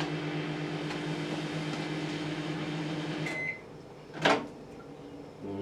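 Microwave oven running with its steady hum, which cuts off a little over three seconds in with a brief beep. About a second later comes a single sharp click.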